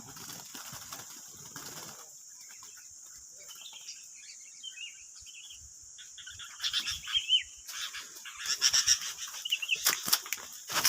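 Sooty-headed bulbuls giving short, scattered chirping calls. From a little past halfway, louder rustling and flapping comes in with scratchy clicks.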